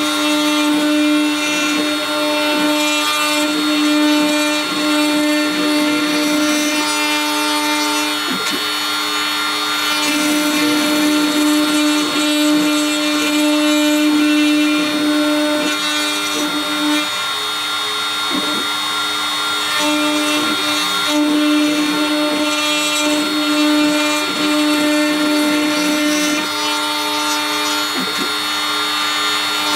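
Shapeoko CNC router milling a wavy relief into wood: the spindle runs with a steady whine while the end mill cuts. A lower hum from the machine's motors stops and starts again every few seconds, with a few brief dips in pitch as the cutter changes its path.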